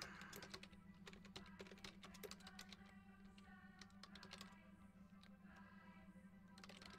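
Faint, irregular clicking of keys being typed on a computer keyboard, over a steady low hum.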